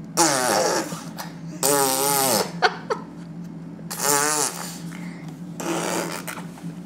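A baby blowing wet, buzzing raspberries with the lips, three loud ones each under a second, wavering in pitch, and a fainter one near the end. They are the baby's attempt at blowing kisses.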